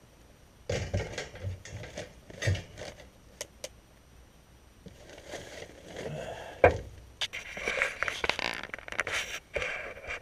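Irregular scraping, rustling and knocks of hands handling PVC pipe and tools at work in a cramped space, with one sharp knock about two-thirds of the way in.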